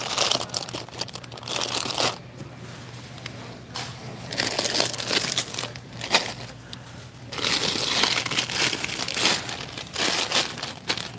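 Plastic bags of Brach's jelly beans crinkling in several irregular bouts as they are handled and shifted, over a low steady hum.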